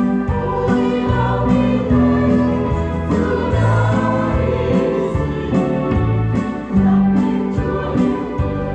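Church choir singing a hymn in Vietnamese, with instrumental accompaniment carrying a bass line and a steady beat.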